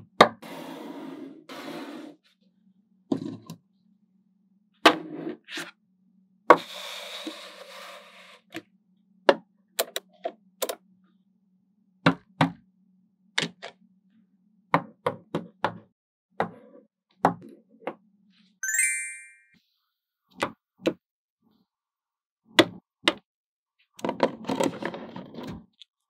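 Small magnetic balls clicking and snapping together one at a time, with a few short stretches of the balls clattering against each other. A faint steady low hum lies under the first two thirds, and a brief high ringing tone sounds about two thirds in.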